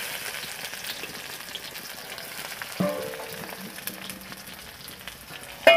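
Chopped onions sizzling steadily as they fry in hot oil in a karahi. A metal clang with a brief ring sounds against the pan about three seconds in, and a louder one near the end.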